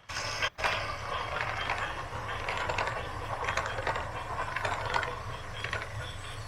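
Machinery running with dense metallic clicking and clattering over a steady low hum, which starts abruptly.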